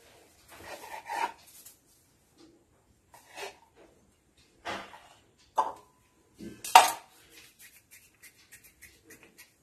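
Kitchen handling sounds: a knife cutting dough against a wooden board, dough pieces set into a ceramic bowl and the knife laid down. They come as a handful of separate knocks and clinks, one ringing briefly, with the loudest about seven seconds in.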